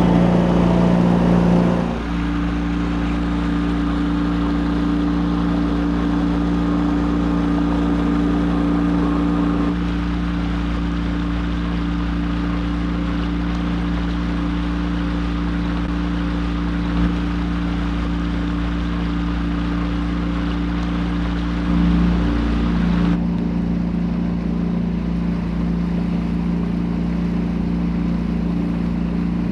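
A sailboat's engine running steadily while the boat motors along, a constant drone with a wash of water noise. Music fades out in the first couple of seconds.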